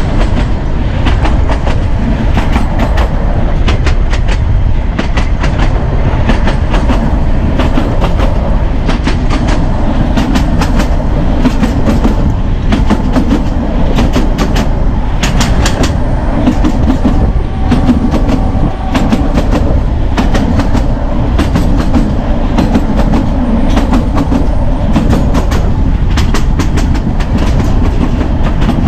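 Narrow gauge train running on the track, heard from on board: a steady rumble with a rapid, uneven clatter of wheels over the rail joints.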